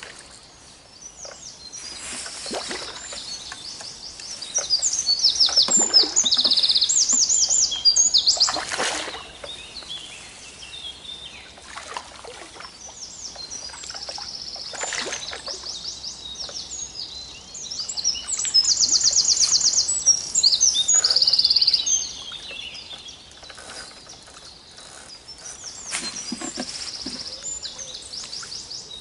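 Several songbirds singing together, with fast high trills and repeated chirping notes. The song is loudest around five to eight seconds in and again around eighteen to twenty-two seconds in.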